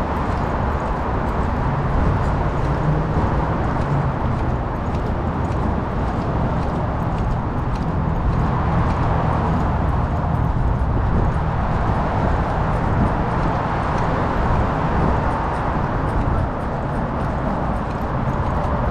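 Steady rumble of traffic and wind picked up by a GoPro strapped to a walking dog's back. The dog's steps and harness jostle the camera mount, making a running patter of small knocks and clicks.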